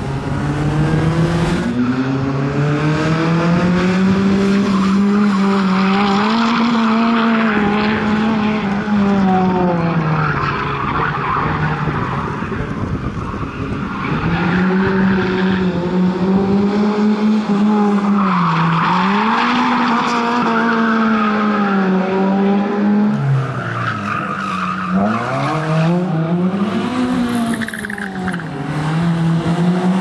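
Suzuki Swift rally hatchback's engine revving hard, its pitch climbing and falling again and again as it accelerates and brakes between tight turns. Tyres squeal in several of the corners.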